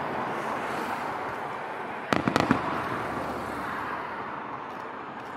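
Aerial fireworks display: a quick cluster of several sharp bangs from shells bursting about two seconds in, over a steady noisy background.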